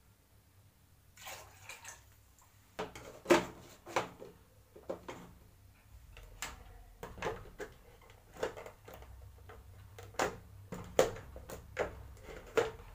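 Irregular plastic knocks and clicks of a blender jug being handled and fitted onto its motor base, the loudest about three seconds in.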